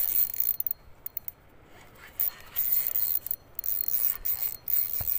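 Spinning reel being cranked to bring in a hooked fish, its gears and line winding with an uneven whirring scrape. It eases off about a second in and picks up again around two seconds in.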